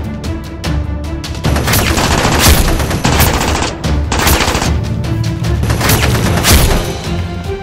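Action background music with a steady beat, overlaid with several bursts of rapid automatic-gunfire sound effects dubbed over toy-blaster shooting.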